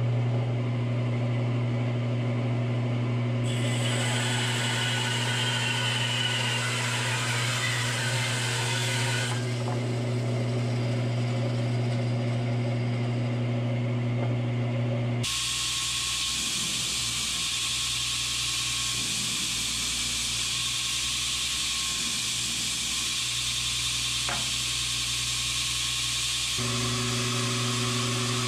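Bandsaw running with a steady motor hum, its blade cutting through a block of cocobolo heartwood with a hissing sawing noise: a cut of several seconds about four seconds in, then a longer cut from about halfway that lasts around ten seconds.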